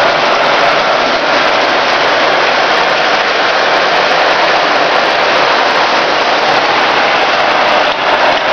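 Several electric three-rail model trains running at once, giving a loud, steady rumbling whir of motors and metal wheels on track.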